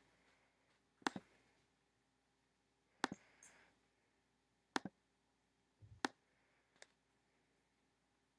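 Faint computer mouse clicks: five sharp clicks spread over about six seconds, several heard as a quick double tick.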